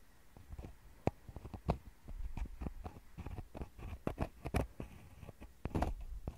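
Wooden ear pick scraping and poking into a binaural microphone's mesh grille, picked up very close: irregular soft scratches and crackly clicks, the strongest a little past the middle.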